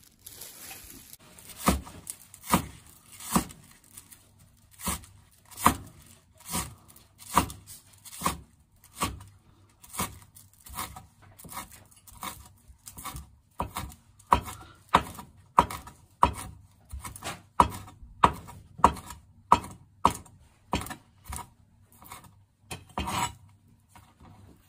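Chinese cleaver chopping green onions on a cutting board: a steady run of knife strikes, roughly one to two a second, coming a little faster in the second half.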